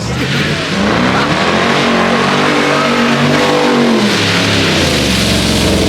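Car engine revving hard as the car is slid on rain-wet pavement, its pitch climbing and then dropping back about four seconds in.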